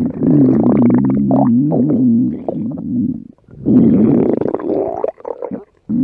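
Stomach rumbling: long, loud growling gurgles with a wavering pitch, which break off briefly a little past halfway and again near the end.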